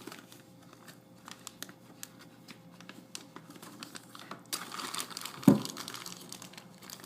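Adhesive tape being peeled off the edge of a laptop LCD panel, crinkling and crackling in small clicks. Late on, a single sharp knock.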